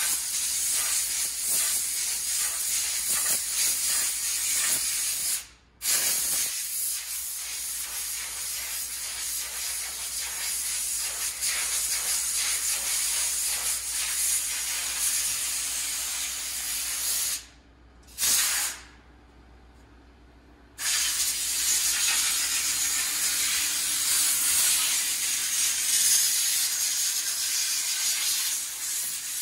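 Compressed air hissing steadily from a powder-coating spray gun as powder is sprayed onto bus radiator shutters. It cuts off briefly a little over five seconds in, then again for about three seconds around the eighteen-second mark, broken by one short burst.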